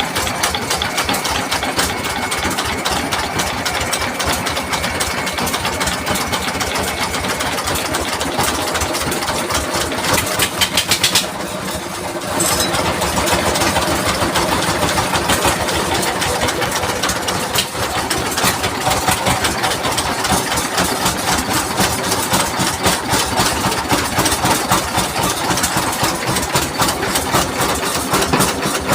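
Single-cylinder Dongfeng 24 hp diesel engine running with a steady knocking beat. About ten seconds in it briefly gets louder, then dips for a moment before settling back to a steady run.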